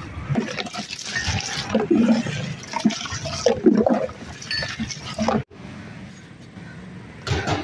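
Liquid sloshing and splashing in a plastic drinks cooler as a drink is poured and stirred, with irregular knocks; it breaks off sharply about five and a half seconds in, leaving quieter background sound.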